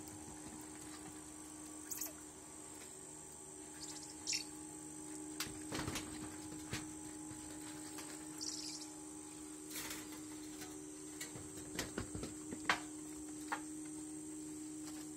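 Rainforest ambience: a steady high insect drone and a low steady hum, with scattered short high chirps. Squirrel monkeys rustle and crack twigs as they climb through the foliage, giving several sharp clicks, a cluster of them about six seconds in and again near the end.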